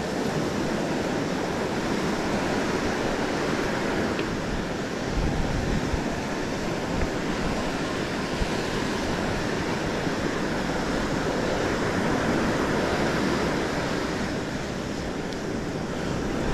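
Ocean surf: waves breaking and washing in steadily, with wind gusting on the microphone now and then.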